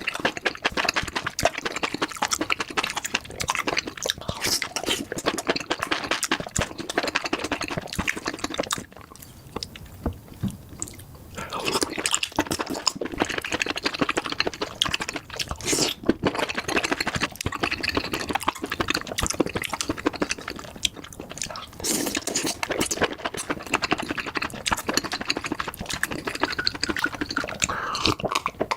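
A person chewing food close to the microphone: continuous wet, crunchy mouth noises, with a quieter pause of about two seconds around a third of the way in.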